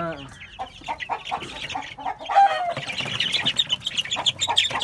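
Chickens clucking in short irregular calls, with one louder falling call about two and a half seconds in and busier, higher chatter after it.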